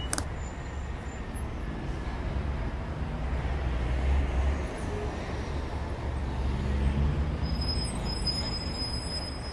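Street ambience: a steady low rumble of road traffic that swells twice, about four and seven seconds in, with a thin high squeal in short runs near the end.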